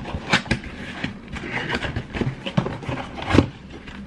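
Cardboard box lid being pried up and lifted off: cardboard scraping and rubbing with a run of light knocks, and one louder knock about three and a half seconds in.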